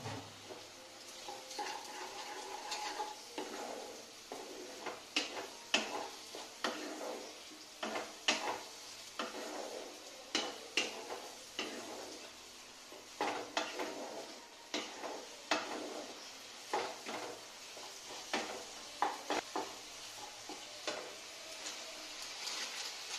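Wooden spatula stirring and scraping a thick onion-tomato masala in a metal kadai, with irregular knocks against the pan about every half second to second, over a light sizzle of the masala frying down.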